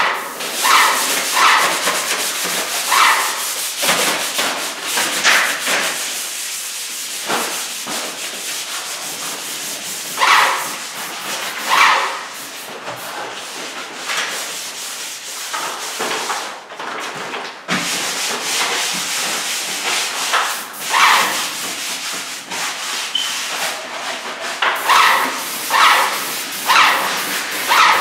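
Hand sanding of painted cabinets, short rubbing strokes one after another, then a paint spray gun hissing in short passes over the shutters, over a steady background hiss.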